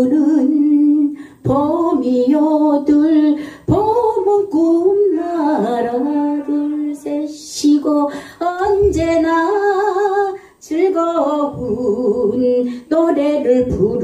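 A woman singing a Korean polka-rhythm song into a handheld microphone, in short melodic phrases with brief breaks between them.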